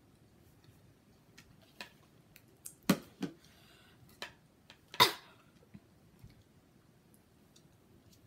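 Sharp clicks and knocks of ramen bowls, utensils and an aluminium soda can being handled and set down, a handful of separate strikes with the loudest about three and five seconds in, and a short breathy hiss between them.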